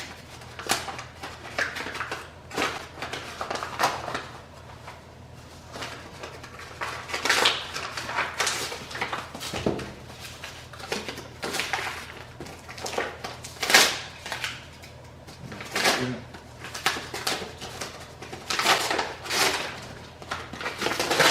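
A mailed package being opened and unpacked by hand: an irregular run of short rustles, rips, scrapes and knocks of the packaging, the loudest about fourteen seconds in.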